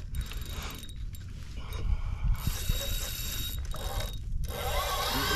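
Spinning reel's drag clicking rapidly as a big hooked fish strips line off the spool against a lightly set drag.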